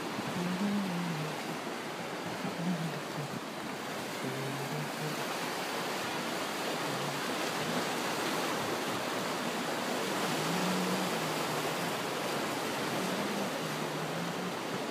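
Steady wash of sea surf breaking on a rocky shore.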